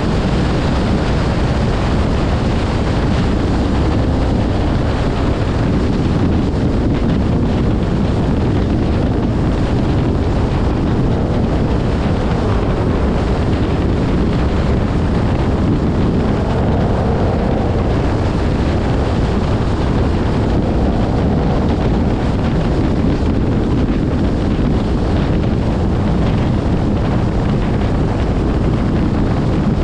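Dodge Challenger widebody driving at road speed: a steady rumble of engine, tyres and road, with wind buffeting the microphone.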